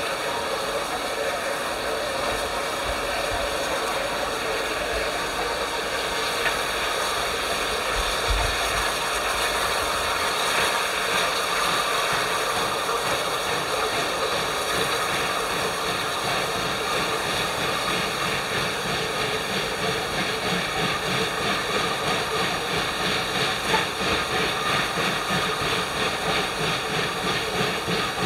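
Rebuilt Bulleid Pacific steam locomotive standing with its train, giving off a steady hiss of steam. In the later part a faint regular pulsing runs under the hiss.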